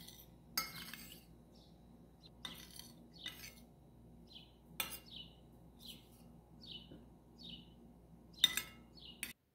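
A metal spoon clinks several times against a glass pizza plate as chopped ham is spooned onto the pizza bases, the sharpest clink near the end. Over the second half a small bird chirps over and over, a short high call about every half second. The sound cuts off abruptly just before the end.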